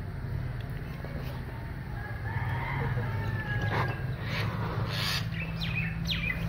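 A rooster crowing over a steady low hum, with a few light knocks.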